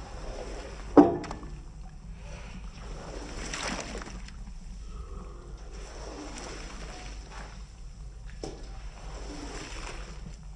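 Water splashing and sloshing as a rug is washed, with a sharp knock about a second in.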